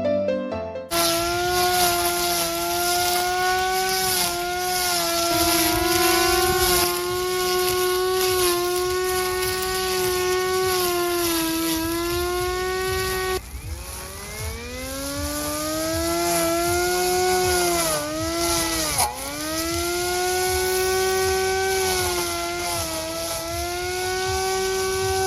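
Cordless brushless grass trimmer motor running at high speed with a high whine and hiss. Its pitch drops sharply and climbs back about halfway through, then sags twice more a few seconds later, as the motor is slowed and speeds up again.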